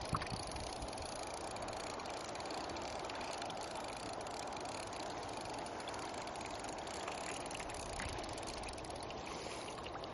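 River water flowing steadily, an even rushing hiss, with a single small click near the start.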